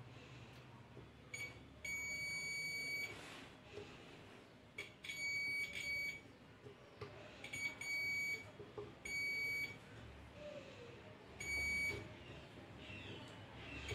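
A digital multimeter's continuity beeper sounds about five times in separate steady high beeps, from half a second to a second long, with small clicks of the probes touching between them. Each beep marks a conducting path between the probed points, as when testing the board for a shorted IGBT.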